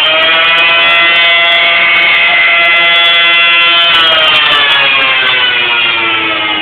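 Air raid siren sounding at full pitch with a steady wail, then winding down in pitch from about four seconds in.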